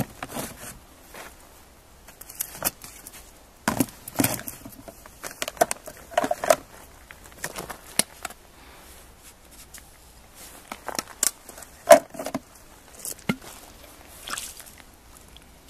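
Irregular handling noises: scattered knocks, rustles and a few light clinks, the loudest a sharp knock about twelve seconds in.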